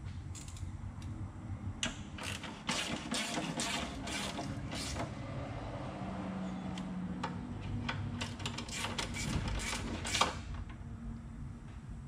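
Hand ratchet on a long extension clicking in quick runs as bolts are turned, in two spells, the second ending about ten seconds in, over a low steady hum.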